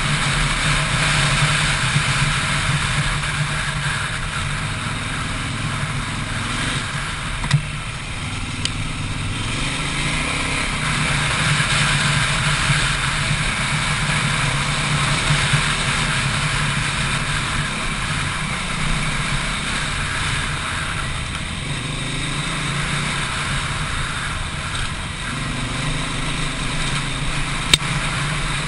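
Adventure motorcycle engine running as it is ridden along a dirt trail, its pitch rising and falling with the throttle, over a steady rushing noise. Two brief sharp knocks stand out, one near the start and one near the end.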